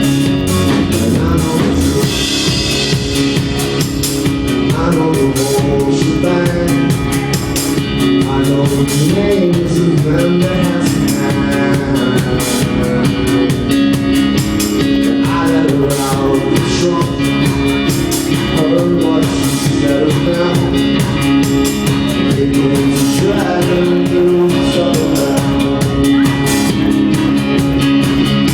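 A live band playing rock music on upright bass, drum kit and guitar, with a singing voice over it and a steady drum beat throughout.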